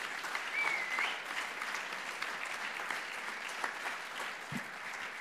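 Audience applauding, a steady clapping that tapers off a little near the end.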